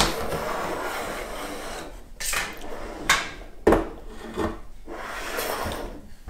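Plastic wheels of a Barbie Glam Convertible toy car rolling and scraping across a tabletop as it is pushed back and forth: a knock, one long scrape, then several shorter ones.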